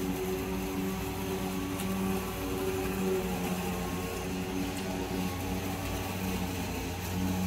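Cordless electric lawn mower running while being pushed through grass: a steady motor-and-blade hum with a low tone that wavers in strength.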